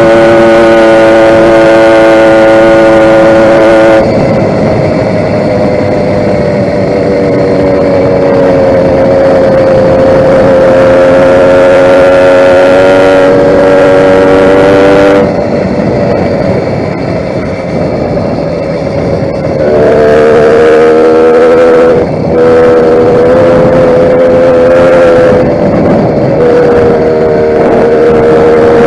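Small YD100 two-stroke motorized-bicycle engine running under way, its note holding, rising and falling with the throttle, with several sudden jumps in pitch and loudness.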